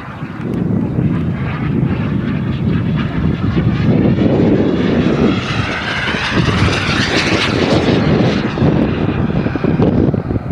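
KingTech K-45G2 kerosene turbine of a Mini Avanti S RC jet in flight: a steady rushing jet noise, with a whine that sweeps up and back down in pitch as the jet passes, around the middle.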